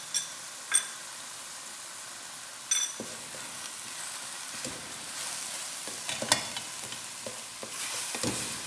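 A wooden spatula stirring and scraping grated pumpkin halwa around a metal karahi, over a steady soft sizzle of the mixture cooking. A few sharp clicks come in the first three seconds before the stirring starts.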